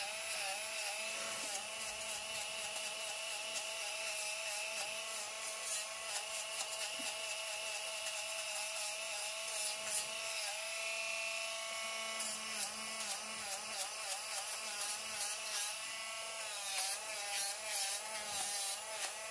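Cordless rotary nail grinder with a diamond bit running steadily as it grinds down a dog's nails. Its whine wavers and dips in pitch now and then as it works.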